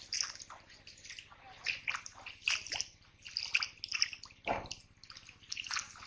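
Splashing in shallow water from bare feet wading and hands grabbing at a fish: a string of short, irregular splashes, with one duller thump about four and a half seconds in.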